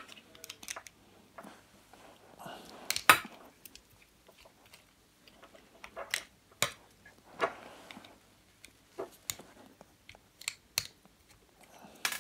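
Small screwdriver undoing the screws of a plastic LED connector box: scattered light clicks and scrapes of metal on plastic, with small screws set down on a glass tabletop.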